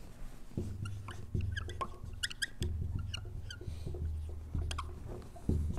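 Dry-erase marker squeaking on a whiteboard while a word is written: a string of faint, short, high squeaks and small taps.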